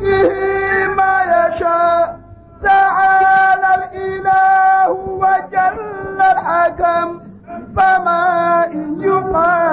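A single voice singing a slow devotional chant in long held notes, in sung phrases broken by two short pauses, about two seconds in and again near seven and a half seconds.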